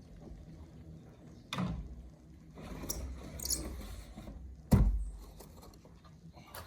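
Wooden pallet being handled: a knock, then a stretch of scraping, then a heavy thud as it is set down, the loudest sound, with a faint knock near the end.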